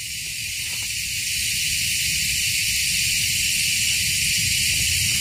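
A steady, high-pitched drone of insects, such as a tropical cicada chorus, with a low rumble beneath; it swells slightly over the first couple of seconds.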